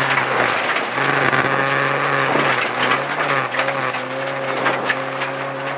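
Toyota RAV4 rally car's engine running hard under load on a gravel stage, its note dipping briefly a few times, over loud tyre and gravel noise with stones clicking against the car.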